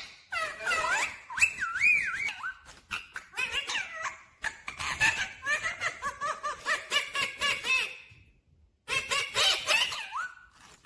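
Rose-ringed parakeet (Indian ringneck) chattering in rapid, laughter-like bursts mixed with whistled rising and falling glides, with a brief pause about eight seconds in.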